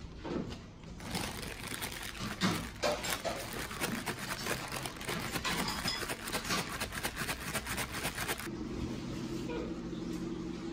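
Paper takeaway bags rustling and crinkling as they are handled and opened, a dense run of crackles from about a second in until near the end. Then the rustling stops and a steady low hum is left.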